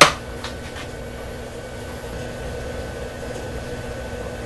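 A single sharp knock right at the start, then the steady hum of the CNC mini mill running, with a constant high whine over a low drone.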